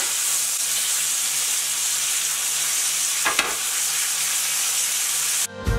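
Flour-dredged chicken breasts frying in butter and olive oil in a cast-iron skillet: a steady sizzle with a single light knock about three seconds in. It breaks off near the end as music begins.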